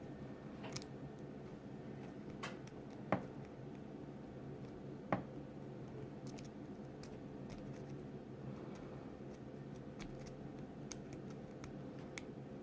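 Light metallic clicks and ticks of a lock pick and tension wrench working in a brass-bodied padlock, with two sharper clicks about three and five seconds in, over a steady low hum.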